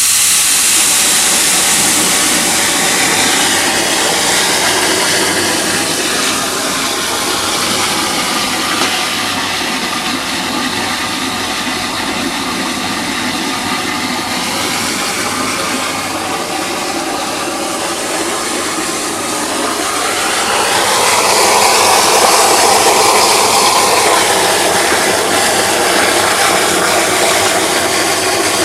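Water running into a 1974 American Standard toilet tank as it fills, a steady rushing hiss that grows louder and fuller about two-thirds of the way through.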